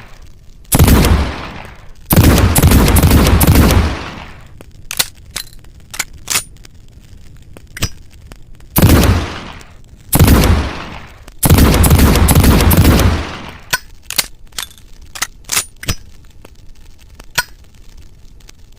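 Smith & Wesson Model 19 revolver firing: single loud shots and two quick runs of shots, each with a long echoing tail. Between the shots come a series of small, sharp metallic clicks from the gun's action.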